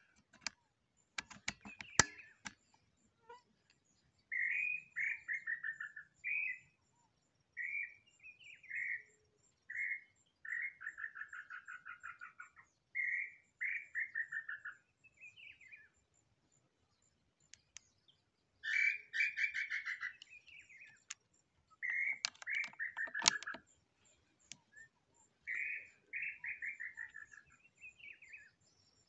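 Tinamou (nambu) calling: a run of short trilled notes, each about a second long and falling in pitch, repeated with brief pauses. A few sharp clicks sound near the start.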